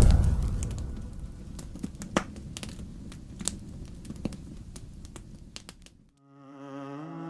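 Dark cinematic sound-design intro: a deep boom fades into a low rumble with scattered sharp crackles. It cuts off about six seconds in, and a low bowed-string drone swells in near the end.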